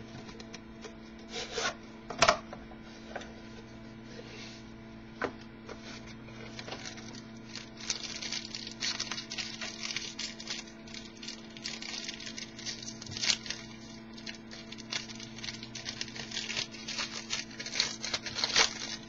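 A trading card box and its pack being opened and handled: sharp taps and clicks of cardboard, then dense crinkling and rustling of wrapper and cards from about eight seconds in, over a steady low electrical hum.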